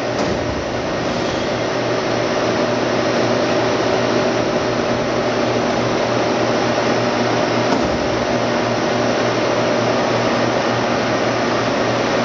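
Steady mechanical hum of a Blanchard 26HD-48 vertical spindle rotary surface grinder as its saddle traverse power-drives the magnetic chuck table in and out, growing slightly louder in the first second or two, with a light knock about eight seconds in.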